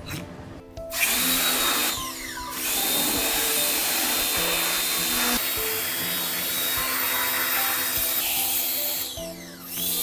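High-pressure steam cleaner hissing as it blasts detergent scum and grime off a disassembled washing-machine drum. The jet stops briefly about two seconds in and again near the end.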